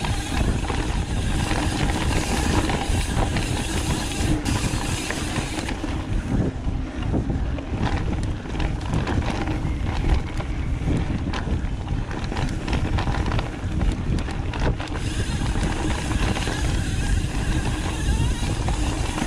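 Wind rushing over a chest-mounted camera's microphone as a mountain bike rolls fast along a dirt trail, with tyre noise on the dirt and frequent clicks and knocks from the bike and the camera mount.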